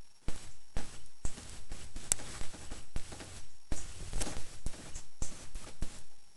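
Rain dripping and pattering: irregular sharp taps, two or three a second, over a faint hiss.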